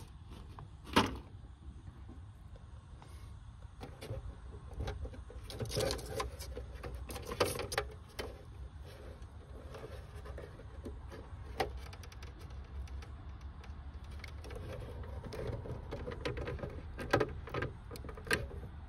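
Handling noise from wiring work: wires, plastic plug connectors and terminal connectors being moved and pressed together, giving scattered clicks and rustles, with one sharp click about a second in. A low steady rumble runs underneath.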